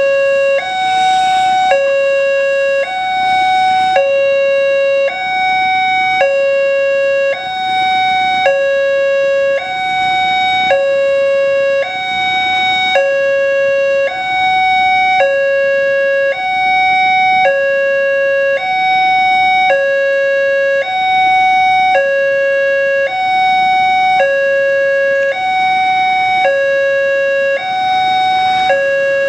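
Electronic two-tone railway level-crossing alarm, a lower tone and a higher tone taking turns about once a second each, warning that a train is approaching the crossing.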